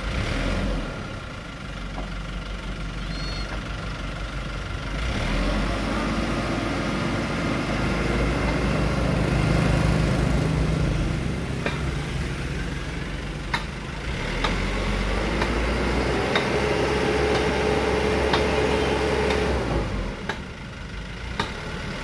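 A truck engine running, speeding up a few seconds in and easing off again, with several sharp clicks or knocks in the second half. A steady hum joins it for a few seconds and stops shortly before the end, where the engine drops back.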